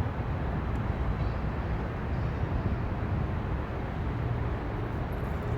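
Freight train of tank cars rolling past, a steady low rumble without a break.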